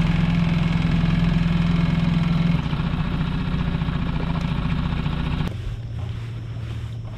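Honda four-stroke outboard motor running steadily on a small aluminium boat. The hum drops a little about two and a half seconds in, then cuts abruptly to a quieter, lower hum near the end.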